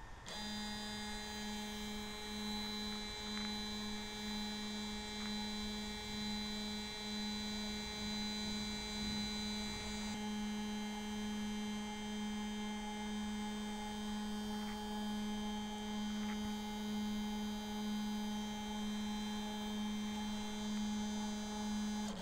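Stepper motor driving a linear stage along its screw at a steady homing speed, giving an even, steady hum; the higher tones of the whine drop out about halfway through.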